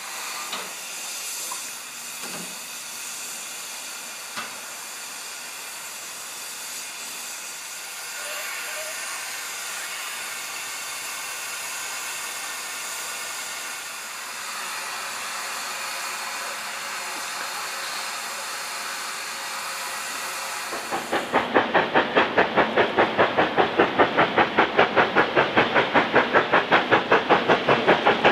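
Steam hissing steadily from a standing LMS Black Five 4-6-0 steam locomotive, with a few faint clicks. About three quarters of the way through it gives way to the same two-cylinder engine working hard, its exhaust beating sharply at about four to five beats a second.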